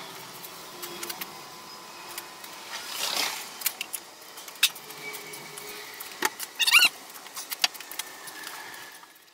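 Scattered clicks, knocks and light clatter of objects being picked up and set down, with a brief swish about three seconds in and a short squeaky chirp near seven seconds. The sound cuts off abruptly just before the end.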